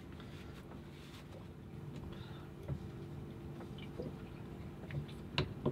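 Faint clicks and taps of small metal parts being handled on a stripped-down Katadyn Powersurvivor water-maker pump, with a sharper click near the end, over a steady low hum.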